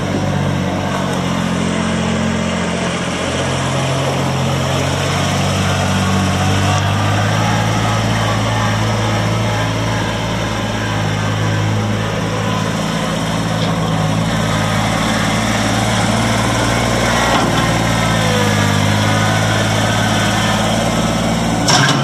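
Kubota BX25D compact tractor's three-cylinder diesel engine running steadily while the tractor drives. The engine note shifts about a third of the way through, and a few sharp knocks come right at the end.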